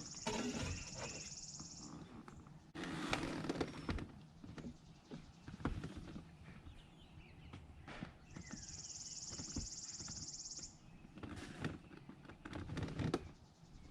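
Dash trim being worked loose by hand: clicks, knocks and rustling of plastic panels, with two louder stretches of handling noise. Twice a high, even buzz lasts about two seconds.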